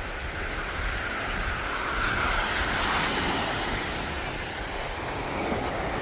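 Ocean surf washing up on a sandy beach, with wind buffeting the microphone. The noise swells to its loudest around the middle, then eases.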